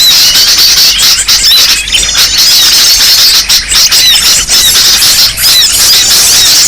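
A dense, noisy chorus of many small birds chirping and twittering at once, with quick high-pitched overlapping calls. It is a bird-luring (pikat) call recording, meant to draw small birds in.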